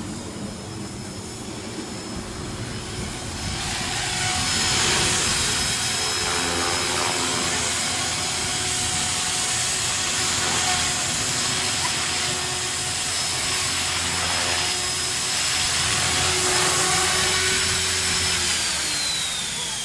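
A 450-size flybarless electric RC helicopter (Mini Protos) flying, its motor and rotor making a steady high whine that grows louder about three and a half seconds in. Near the end the whine falls in pitch as the rotor spools down with the throttle cut.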